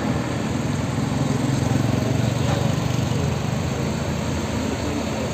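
Diesel engine of a Mercedes-Benz OF 1623 coach running as the bus pulls slowly past, a steady low drone that swells a little about two seconds in.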